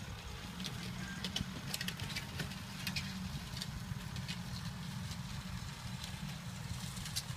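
Farm tractor engine running steadily while pulling a disc implement through worked soil, a low steady rumble with scattered faint clicks above it.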